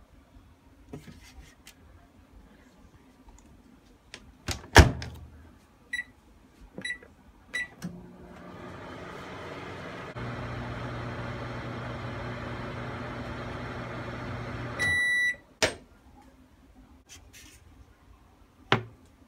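Microwave oven in use. The door shuts with a loud knock, the keypad beeps four times, and the oven runs with a steady hum for about seven seconds. It ends with a long beep, after which the door is clicked open.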